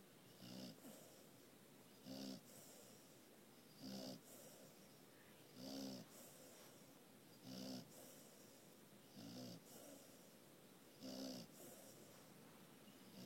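Snoring, steady and rhythmic, one rasping breath about every two seconds, seven in all.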